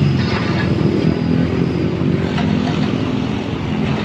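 A motor vehicle engine running steadily with a low hum, over road traffic noise.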